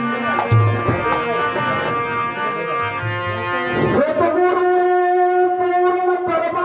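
Harmonium playing an instrumental passage of sustained reedy chords and notes, moving to a new long-held note about two-thirds of the way through, with a few light knocks.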